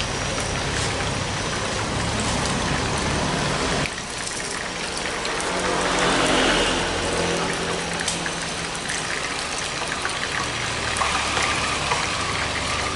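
Chicken pieces deep-frying in hot oil in a pan, a steady sizzle, with a few light metal clicks as tongs lift the pieces into a wire strainer.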